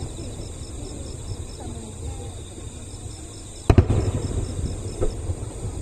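Aerial fireworks shells bursting overhead: one sharp, loud boom about two-thirds of the way in, trailing off into a rumbling echo, with a smaller bang a second later over a steady low rumble.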